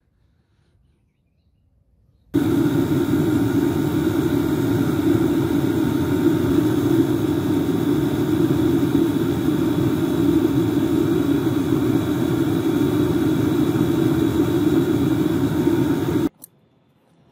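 A loud, steady machine running noise with a faint hum in it. It starts suddenly a couple of seconds in and cuts off suddenly about a second before the end.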